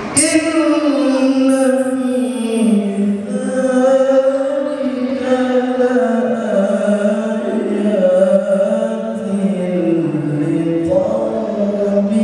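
A voice chanting in long held notes that glide slowly up and down in pitch, beginning suddenly right at the start.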